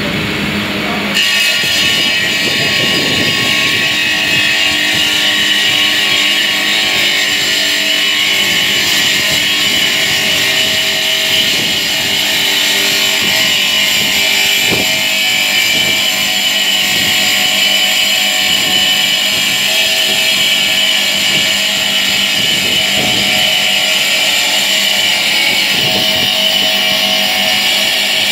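Bridge-type marble cutting saw running, its circular diamond blade cutting through a marble slab: a loud, steady, high-pitched whine with grinding, which grows louder and harsher about a second in and then holds steady.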